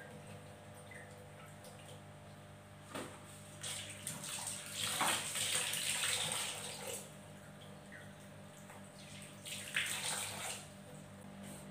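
Kitchen tap running into a stainless steel sink, the water splashing over a bowl of buni berries being rinsed by hand. The water noise comes in two spells, from about four to seven seconds in and again around nine to ten seconds in.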